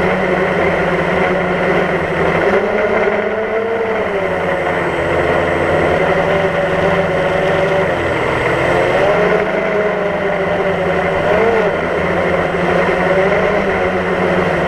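DJI Phantom quadcopter's electric motors and propellers buzzing loudly and steadily, picked up by the camera mounted on the drone; the pitch wavers up and down a little several times as the drone adjusts its flight.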